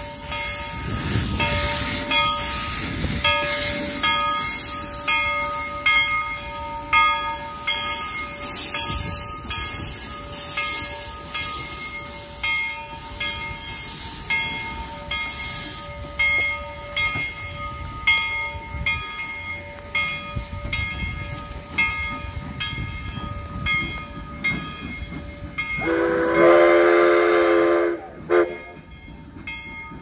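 Narrow-gauge 2-8-0 steam locomotive No. 425 getting under way, its bell ringing about once a second over steam hiss and exhaust chuffs. Near the end its steam whistle blows a long blast of about two seconds, followed by a short toot.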